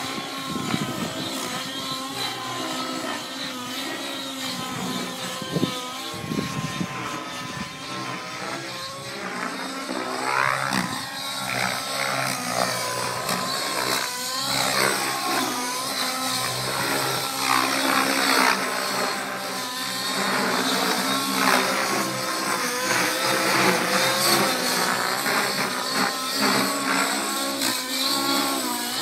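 Nitro RC helicopter's YS 120SR two-stroke glow engine with a Hatori tuned pipe, running at high revs with its rotor in flight. The engine note keeps rising and falling, and it grows louder from about ten seconds in.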